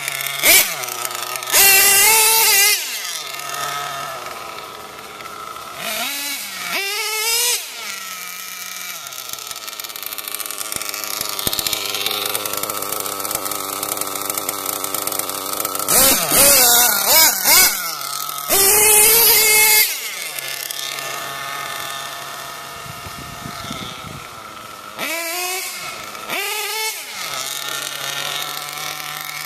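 Nitro RC monster truck's Picco .28 two-stroke glow engine, run in repeated hard bursts of throttle that drop back to a steady idle. The pitch falls sharply several times as the truck speeds past.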